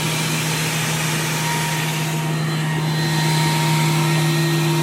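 A WEN PL1326 thickness planer with a spiral cutterhead running on a test start. Its motor and cutterhead give a steady hum with a dense rushing noise, a little louder from about three seconds in.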